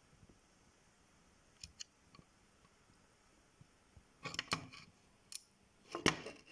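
Light clicks and scraping from a small circuit board and its parts being handled, coming in a few quick clusters in the second half after near quiet.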